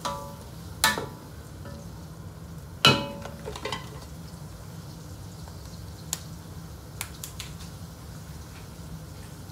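A wooden spoon knocking against the rim and sides of a large metal stockpot while stirring, giving four ringing clanks, the loudest about three seconds in. A few fainter light ticks follow later, over a steady low rumble.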